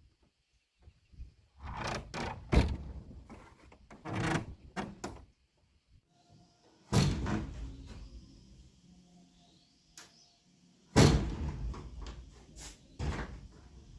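Wooden parts being handled and fitted together: bouts of sliding and scraping with sharp knocks, three of them louder than the rest, separated by short quiet gaps.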